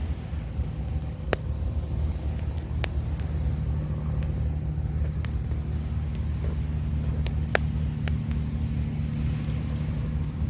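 A wood campfire crackling, with a handful of sharp pops; the loudest comes about two-thirds of the way through. Under it runs a steady low rumble with an even hum like a running engine.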